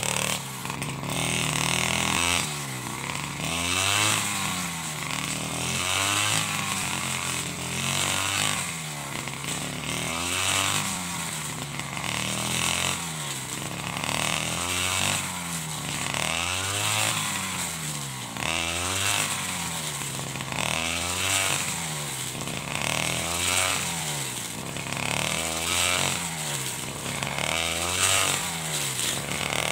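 A 49cc side-slung brush cutter engine revving up and falling back over and over, roughly once a second, as the blade is swung through standing rice stalks.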